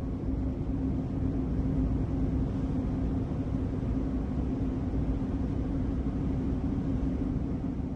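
Fiat Ducato camper van driving at a steady speed: even engine and road noise with a steady low hum.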